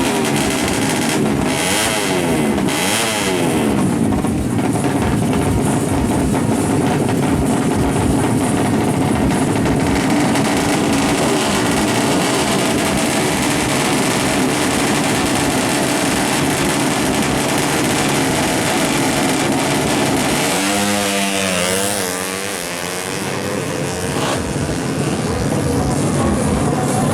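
Drag-racing motorcycle engines running loud and high-revving, with pitch sweeping up and down as they rev. About three quarters of the way in, the sound dips slightly and the pitch swings quickly up and down.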